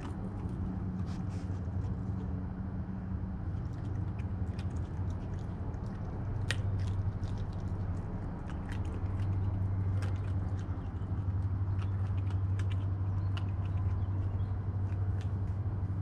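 Raccoon crunching dry kibble: a scatter of sharp crunches and clicks. Under it runs a steady low hum that grows louder about halfway through.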